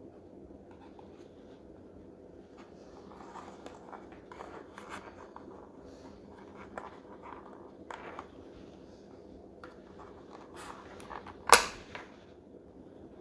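Scattered small clicks and handling rustles, then one sharp, loud click a little over eleven seconds in, from hands handling a plastic alarm clock and its power cable.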